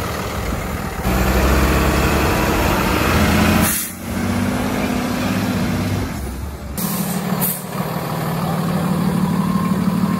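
Diesel engine of a medium-duty box truck running as it drives and pulls up, its sound changing abruptly a few times, with short hisses of air about four and seven seconds in.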